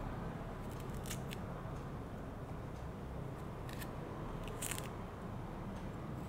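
Fresh ginger being cut into small pieces: a few short, crisp snips over a low, steady background hum.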